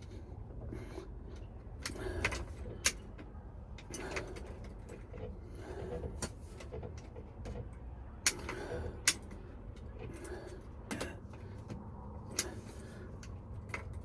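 Scattered sharp clicks and light metallic knocks of small parts and a screwdriver being handled, as a screw is slowly threaded into a new hazard switch in an old truck's steering column, over a low steady rumble.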